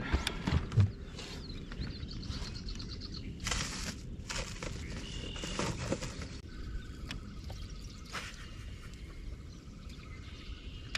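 Birds chirping and calling around a reed marsh over a low steady noise, with a few brief clicks and knocks in the first second.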